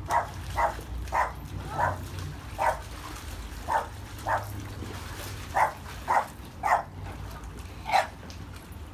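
A dog barking repeatedly: about a dozen short barks at uneven intervals.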